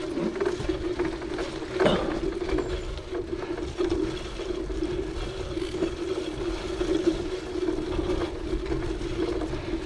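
Cyclocross bike rolling fast over a dirt forest trail: a steady hum from the tyres with the rattle and knocks of the bike going over bumps, and a sharper knock about two seconds in.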